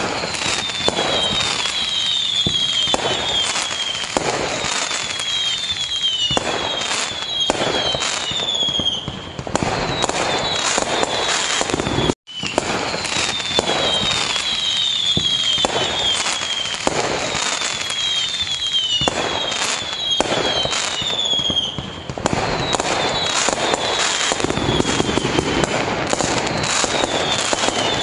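Fireworks display: a dense, continuous barrage of bangs and crackling, with clusters of short falling whistles. A brief gap of silence comes about twelve seconds in.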